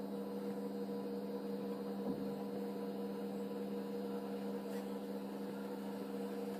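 Steady electrical hum made of several constant tones over a faint hiss.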